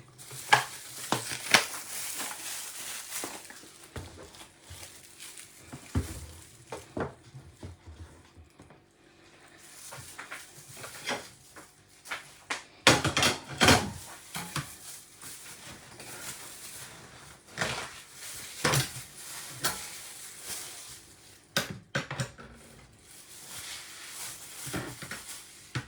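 Kitchen utensils and cut ingredients clinking and knocking against a small cooking pot as the ingredients are put in, in irregular sharp strikes with quieter handling sounds between; the loudest knocks come about a second in and about halfway through.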